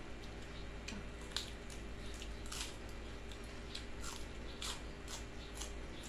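Close-up chewing of raw cabbage and grilled pork: irregular, sharp wet crunches and mouth clicks.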